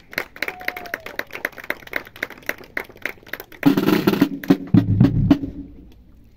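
Pipe band snare and bass drums: quick, steady wooden clicks of drumsticks at about five a second, then about three and a half seconds in a loud snare roll with bass drum beats that ends about five and a half seconds in.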